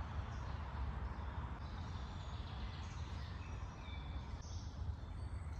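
Birds chirping and singing in short high calls over a steady low rumble.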